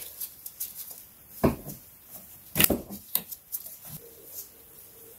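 Plastic quick-release fuel hose connectors on the fuel filter housing of a 1.6 HDi diesel engine being pushed and pulled off by hand. They make scattered small clicks and knocks, the sharpest about a second and a half in and just under three seconds in.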